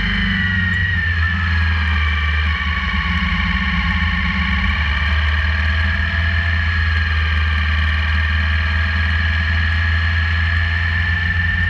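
Motorcycle engine running steadily at cruising speed, with heavy low rumble and wind buffeting on the bike-mounted camera's microphone, and a steady high whine that drifts slowly in pitch.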